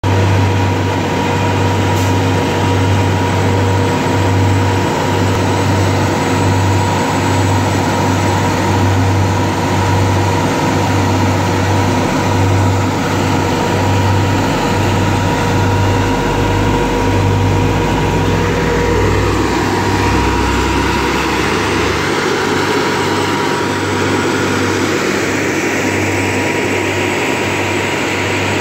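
Diesel engines of parked seismic vibrator trucks idling: a steady low drone with a constant higher whine.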